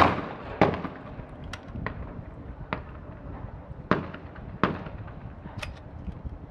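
12-gauge shotgun shot right at the start, the second of a skeet doubles pair, followed by several fainter gunshots further on and a few small clicks.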